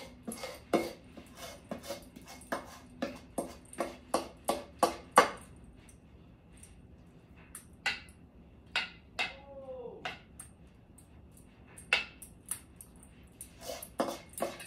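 A utensil scraping and knocking against a mixing bowl as cornbread batter is scraped out into a baking pan: a run of short sharp clicks and taps, thinning out midway. About ten seconds in, a brief squeak whose pitch bends down and back up.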